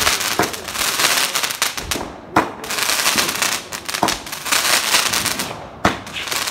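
Firecrackers going off in a continuous dense crackle, with four louder sharp bangs spaced about two seconds apart.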